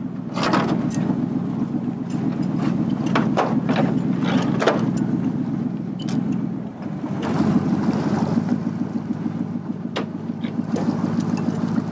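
A workboat's engine idling steadily, with scattered short knocks over it. The engine briefly drops about seven seconds in, then carries on at a slightly different pitch.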